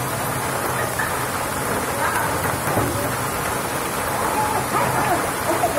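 Heavy rain mixed with hail pelting a muddy dirt yard: a steady, dense patter.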